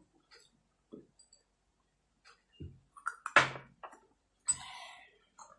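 A few light clicks and knocks of drinking glasses and utensils on a table while people sip water, with short breathy mouth sounds between them. The sharpest knock comes about three and a half seconds in.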